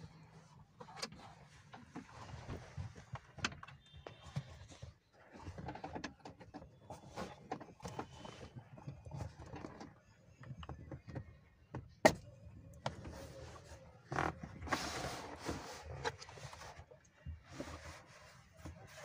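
Irregular clicks, knocks and rattles of hand tools and plastic trim parts being handled inside a car, with one sharp knock about twelve seconds in and a short rushing noise a little after.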